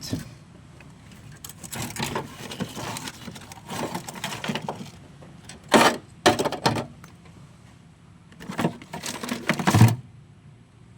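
Irregular handling noises: scattered clicks, knocks and scraping rustles of tools and metal being moved about by hand. The sharpest knocks come about six seconds in and again near the end.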